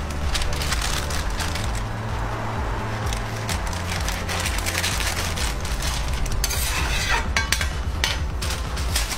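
A metal spatula scraping and clicking on a flat-top griddle and a paper wrapper rustling as a toast sandwich is lifted and wrapped, over a steady low hum.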